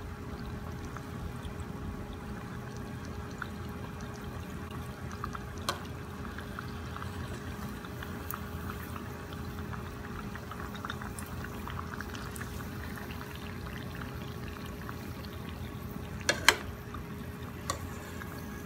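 Buns frying in hot oil in a pan: steady sizzling and bubbling of the oil, with a few sharp clicks, the loudest about three-quarters of the way through.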